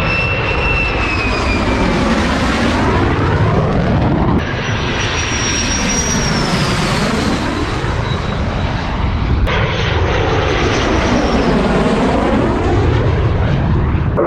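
Fighter jet flying past, three passes joined end to end about every five seconds. Each pass is a loud jet roar with a sweeping whoosh and a high whine that falls in pitch as the jet goes by.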